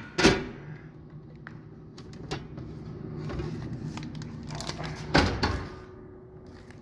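Vending machine's pickup door flap being pushed open and swinging back as a bottle of Gatorade is pulled out through it: a sharp knock just after the start and a louder clatter about five seconds in, over a steady low hum.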